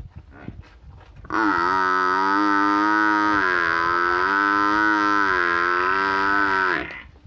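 Water buffalo mooing: one long call starting about a second in and lasting over five seconds, its pitch wavering slightly, then stopping shortly before the end.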